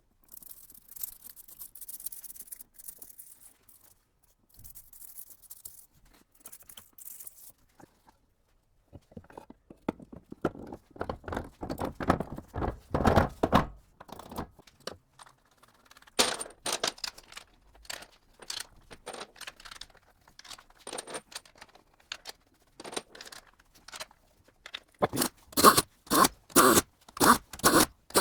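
Workshop hand work on manual gearbox parts: a faint hiss, then scraping and rubbing, scattered clicks and knocks, and near the end a run of sharp knocks about three a second.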